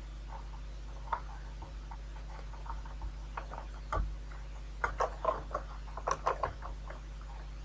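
Computer keyboard typing and mouse clicks: a few scattered clicks, then a quick run of key presses about five seconds in, over a steady low hum.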